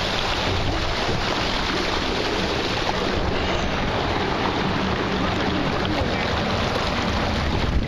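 Steady rush of water streaming down a water slide's chute during a ride down it, mixed with wind buffeting the microphone.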